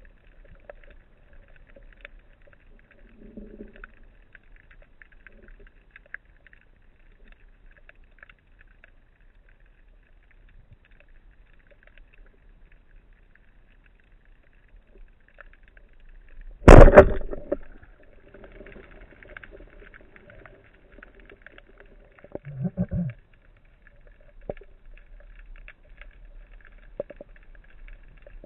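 Underwater sound of the sea: a faint, steady crackling. About two-thirds of the way in there is one loud thump lasting about a second, and a shorter, deeper thud follows some six seconds later.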